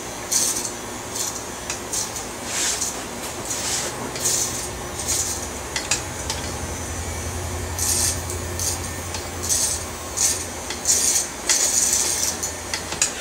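Corded electric hair clippers with a one-inch guard running with a steady hum, cutting through hair on top of the head in about a dozen short, repeated strokes that each add a brief rasping hiss.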